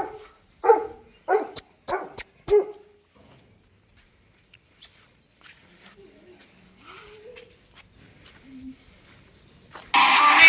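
A dog barks five times in quick succession, short sharp barks, then falls quiet. Loud background music with singing comes in near the end.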